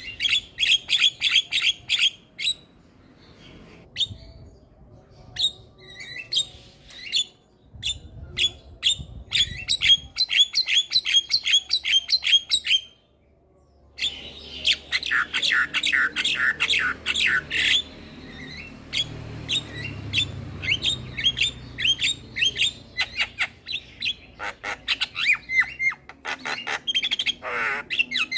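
Javan myna singing: fast runs of short, sharp repeated chirps with squawky notes mixed in, breaking off briefly about halfway before the runs start again.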